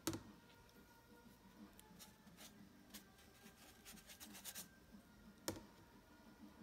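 Near silence with a few faint clicks and light taps, the sharpest right at the start and about five and a half seconds in: hands handling a taped watercolour painting board.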